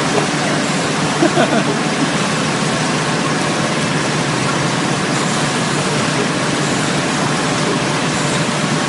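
Automatic soft-pack facial tissue packaging machine running: a steady, dense mechanical noise that holds at one level.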